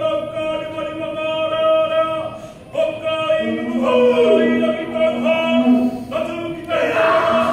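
Māori ceremonial chanting: long held vocal calls on a high, steady pitch, broken by short pauses for breath, with a lower held voice joining about three and a half seconds in.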